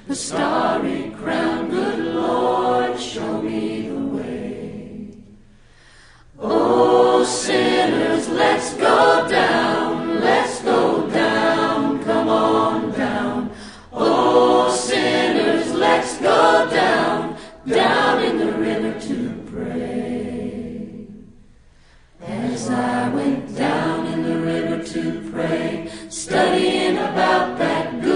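A cappella choir singing in unaccompanied parts, in long phrases with brief breaths between them about five seconds in and again about twenty-one seconds in.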